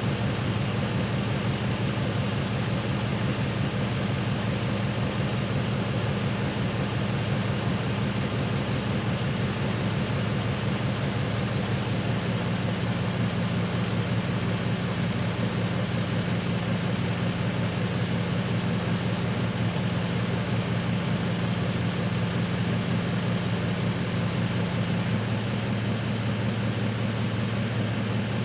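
Truck engine idling steadily with a low, even hum. The hum's tone shifts slightly about twelve seconds in and again near the end.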